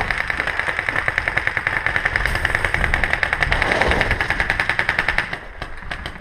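Paintball marker firing a rapid, even string of shots, stopping about five seconds in.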